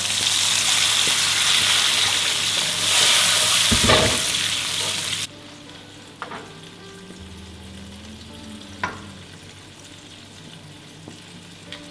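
Water poured from a jug into a pan of hot oil with fried garlic, ginger and chillies, hissing and sizzling loudly; the sizzle cuts off suddenly about five seconds in. After that it is much quieter, with a couple of light clicks.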